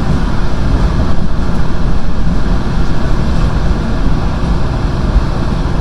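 Passenger train running along the line, heard from inside the carriage: a loud, steady rumble of wheels on rails.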